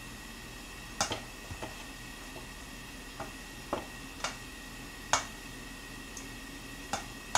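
A utensil tapping and clicking against a bowl about ten times at an uneven pace while seasoned rice is mixed, with one sharper knock about five seconds in.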